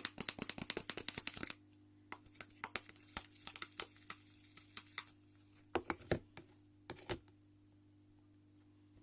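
Spoon clicking and scraping against a pot as a hand-soap and salt slime mixture is stirred: a fast run of clicks for the first second and a half, then slower scattered taps that stop about seven seconds in.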